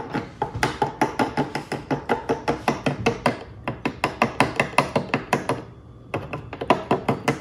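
Metal teaspoon tapped rapidly against a plastic bottle's mouth, a quick run of light clinks about five or six a second, as mineral salt powder is knocked into the bottle. There is a brief pause about two-thirds of the way through.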